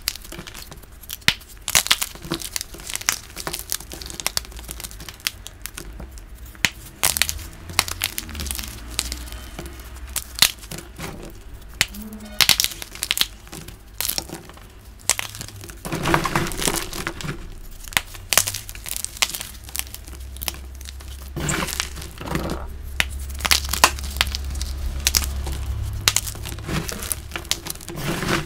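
Fingers crushing and crumbling blocks of dyed gym chalk: a dense, irregular run of crisp crunches and sharp snaps, louder for a stretch about halfway through.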